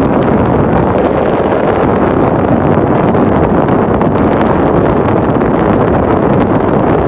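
Steady loud rushing noise of wind buffeting the microphone.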